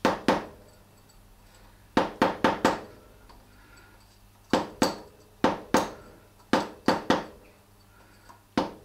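A mallet striking a small metal punch held against a sprocket nut's lock tab washer, about a dozen sharp metallic taps in short groups of two or three. The taps are flattening the bent-up tab so the front sprocket nut can be undone.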